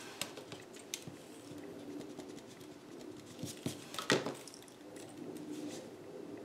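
Pen and paper being handled on a desk: a few light clicks and taps, the loudest a short cluster about four seconds in, over a faint steady hum.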